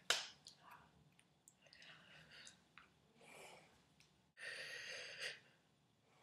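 A person's sigh-like exhale about four and a half seconds in, lasting nearly a second. It follows a sharp click at the very start and faint scattered small noises.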